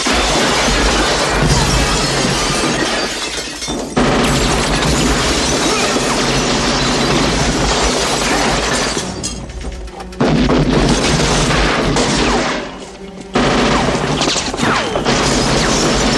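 Action-film soundtrack: a loud mix of score and crashing, shattering effects, cut off and restarted abruptly several times as the clips change.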